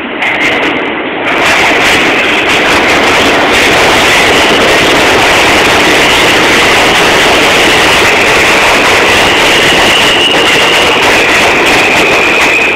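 New York City subway E train arriving and running along the platform at speed: loud, steady rumble of steel wheels on rail that jumps up about a second in as the train reaches the platform, with a steady high squeal over it that steps up in pitch a little a couple of times.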